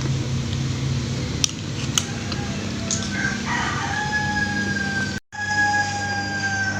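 A rooster crowing: one long drawn-out call starting about three seconds in, held on a steady, slightly falling pitch. A steady low hum runs underneath, with a couple of sharp clicks earlier.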